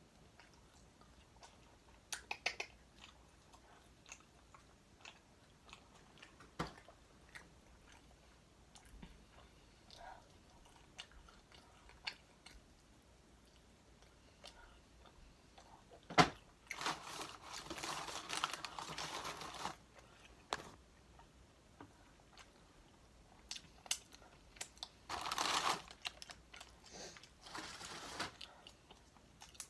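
Close-up chewing and crunching of crispy fried chicken wings, with scattered small clicks and two louder spells of crunchy chewing, one about halfway through and one near the end.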